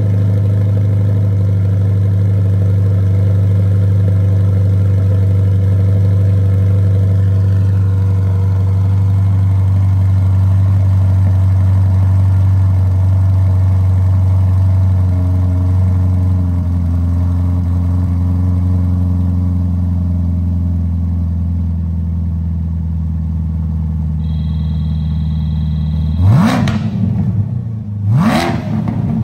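C8 Corvette V8 running at fast idle after a cold start through a FabSpeed X-pipe exhaust, the idle note easing down a little in steps as it settles. Near the end the throttle is blipped twice, two quick revs about two seconds apart.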